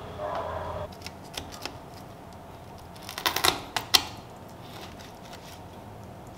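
A kitchen knife cutting raw chicken wings apart at the joint on a plastic cutting board: a few light clicks, then a quick cluster of sharp knocks of the blade on the board about three to four seconds in.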